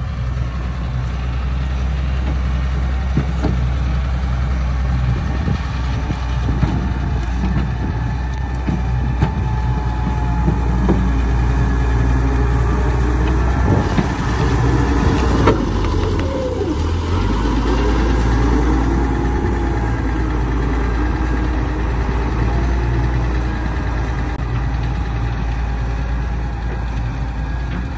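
Doosan wheeled excavator's diesel engine running steadily as the machine drives and pushes dirt with its front blade, with wavering whines near the middle.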